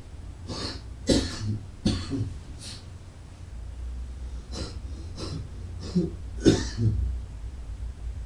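A person coughing and clearing their throat: about eight coughs in two bouts of four. By the title, a heavy drinker's and smoker's cough.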